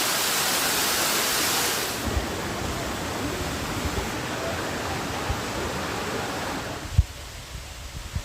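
Rushing water of a waterfall, a steady noisy roar that drops in level about two seconds in and again near the end.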